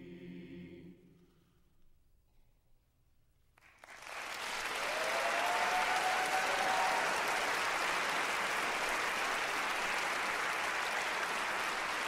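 A choir's final held chord dies away in the first second or so. After a brief hush, audience applause breaks out suddenly about three and a half seconds in, swells over the next couple of seconds and keeps going steadily.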